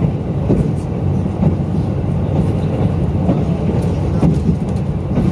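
Cabin sound of a KiHa 185-series diesel railcar running at speed: a steady low rumble of engine and wheels on the rails, with occasional faint clicks.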